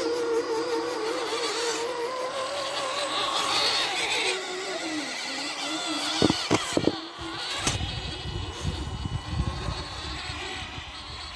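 Electric motor of a scale RC crawler whining, its pitch wavering and sliding with the throttle, with a few sharp knocks about six to seven seconds in. After a cut it gives way to an uneven low rumble of the small tyres rolling over rough ground.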